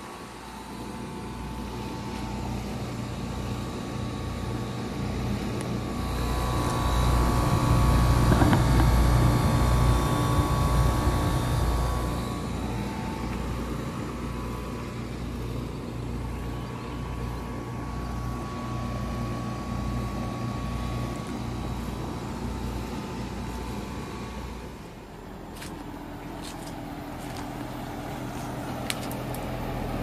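1994 Rheem Imperial Classic XII outdoor air-conditioning condenser running: a steady compressor hum and condenser fan, louder for a while in the middle. About 25 s in this gives way to a quieter, different hum from a new 2022 Bosch heat pump outdoor unit running.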